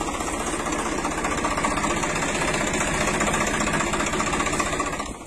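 Tractor engine running steadily with a fast, even putter that cuts off abruptly at the end.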